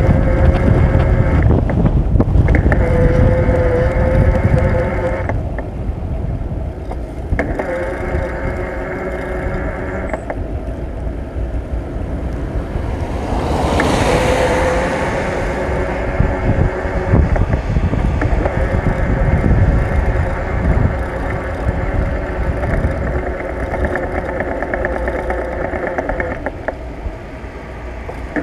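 Wind rumbling on the microphone of a camera on a moving bicycle, with a steady whine that comes and goes in stretches of a few seconds. About fourteen seconds in, a rushing sound swells and fades.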